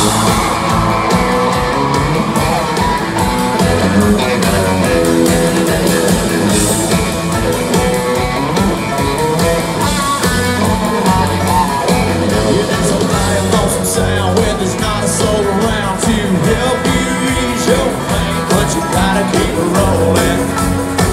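Live country band playing an instrumental break, with guitars over bass and drums at a steady, loud level, heard from the audience.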